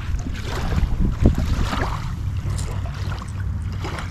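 Steady low rumble with wind buffeting the microphone, and a few faint clicks over it.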